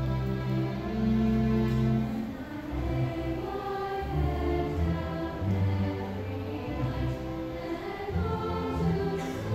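Mixed choir singing with a student orchestra accompanying, with long held bass notes from the low strings.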